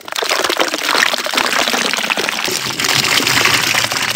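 Strawberries tumbling into a stone basin of water and being sloshed about, a loud, continuous splashing made of many small splashes that starts abruptly.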